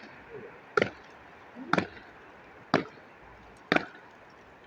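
Sharp impacts repeating about once a second, four strikes with the last one doubled, like blows of a tool on a hard material.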